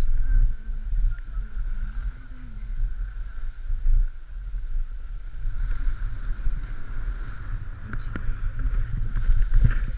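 Wind buffeting the microphone of a skier's camera during a downhill run, a steady low rumble, with skis scraping over groomed snow. A couple of sharp clicks come near the end.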